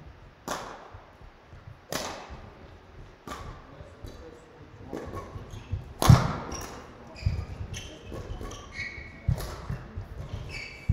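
Badminton rally: rackets striking the shuttlecock about every second and a half, each hit echoing in a large sports hall, with the loudest hit about six seconds in. Short high squeaks of shoes on the court floor follow in the second half.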